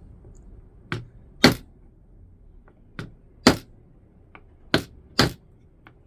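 Sharp knocks of a rim with a lettered plate being knocked into place, set in contact adhesive: four pairs of strikes, each a lighter tap followed about half a second later by a louder knock, with a few faint ticks between.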